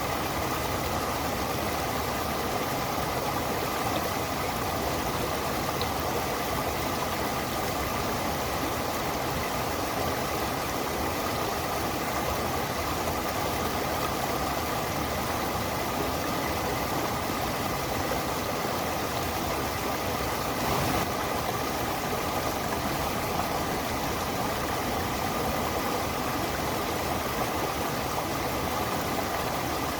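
A stream running over a waterfall: a steady, even rush of water.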